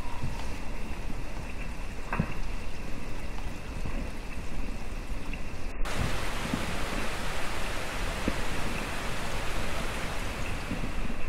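Rain falling on forest leaves: a steady hiss with a few separate drops ticking, turning brighter about halfway through.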